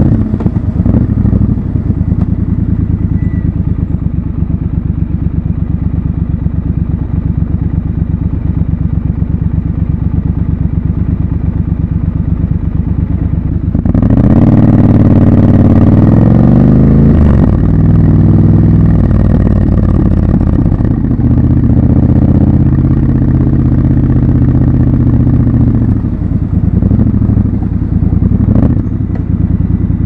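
Triumph Scrambler 1200 XC's 1200 cc parallel-twin engine, heard from the rider's seat. It runs steadily at low revs, then about halfway through the revs rise through a gear change as the bike pulls away. It holds steady for a while and eases off near the end.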